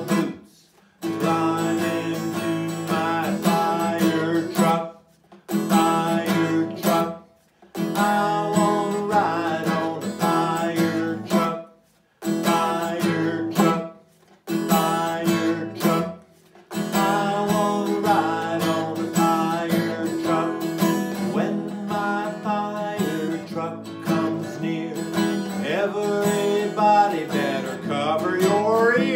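Acoustic guitar strummed with a man singing along. The music stops short about six times, with brief silences before it starts again, and near the end the voice glides upward in pitch several times.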